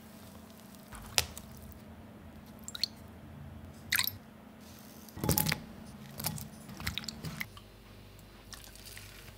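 Kitchen prep handling sounds: wet squishing of thick mung bean batter being stirred with a spoon in a mixing bowl, and a few sharp taps and clinks of a spoon against bowls.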